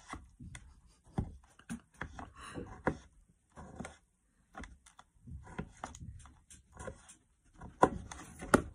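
Knife cutting tomatoes, which are partly frozen inside, in a hard plastic container: irregular clicks and knocks as the blade strikes and scrapes the plastic, a couple of louder knocks near the end.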